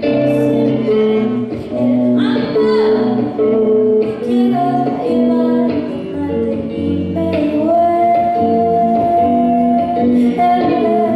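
Live pop band music led by guitar, with a woman singing over it.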